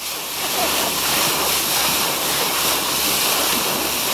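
Steady rushing and hissing of the boat's bow wave and spray as the hull cuts through the sea, mixed with wind.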